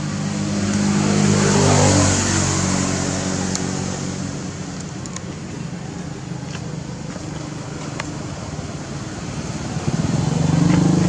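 Motor vehicle engines running by, swelling loudest about two seconds in and again near the end.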